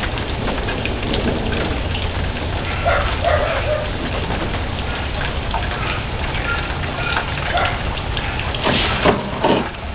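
Steady rain falling, an even hiss that runs on unbroken, with a few brief fainter sounds about three and nine seconds in.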